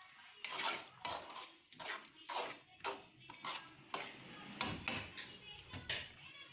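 A metal spoon clinking and scraping against a cooking pot about twice a second while stirring a tamarind-water masala gravy.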